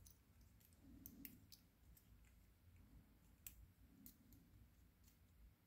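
Near silence, with a handful of faint, sharp metallic clicks from a small lock cylinder being handled as it is taken apart, a thin rod pushed into the back of the plug.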